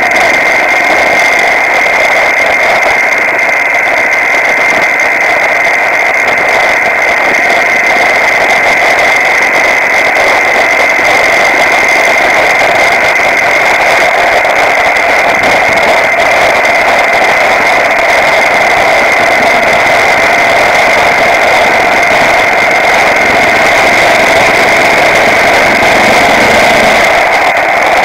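Motorcycle riding at steady road speed, heard from a camera mounted behind its windscreen: continuous engine and wind noise with a constant high-pitched tone running through it.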